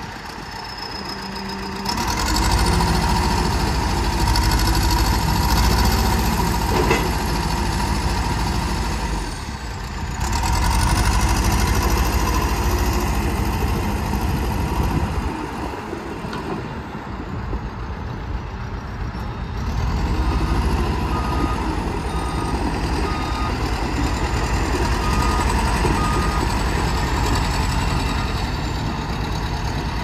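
A John Deere 310J backhoe loader's four-cylinder diesel engine revs up and down as the backhoe boom and bucket are worked, with a high whine rising and falling along with it. In the second half a backup alarm beeps steadily and repeatedly over the engine.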